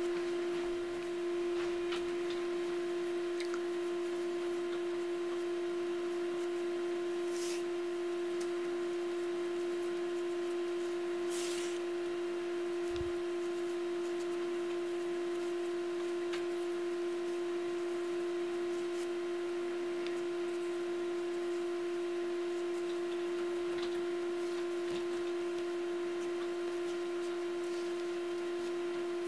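A steady hum holding one pitch, with fainter overtones above it, and two faint brief rustles about seven and eleven seconds in.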